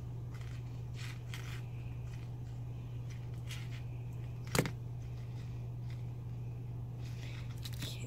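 Faint clicks and scrapes of copper wire being bent and wrapped by hand with jewelry pliers, over a steady low hum. One sharper tap about halfway through, as the pliers are set down on the table.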